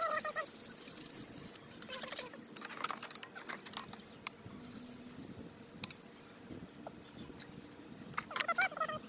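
Metal scraper and wire brush scraping and clinking against the grime-crusted stainless steel flavor bars of a Weber Genesis II gas grill: a hissing scrape at first, then scattered clicks and taps. A short warbling animal call sounds at the start and again near the end.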